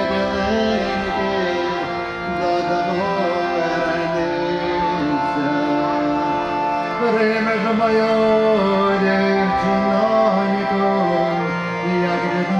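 Hand-pumped harmonium playing sustained reedy chords while a man sings over it.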